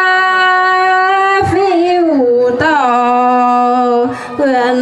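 A Red Dao folk song sung by a single voice in long, drawn-out notes: one held steady note, then a slide down to a lower held note with small wavering turns, and a short break about four seconds in.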